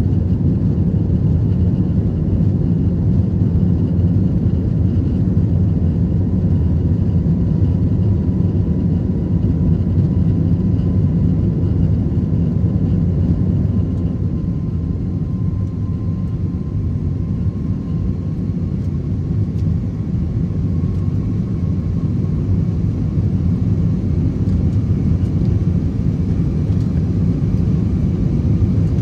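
Airbus A321 cabin noise during the climb after take-off: a loud, steady low rumble of the engines and airflow, with a faint whine that rises slightly in pitch through the middle. The rumble eases a little past the middle, then comes back up.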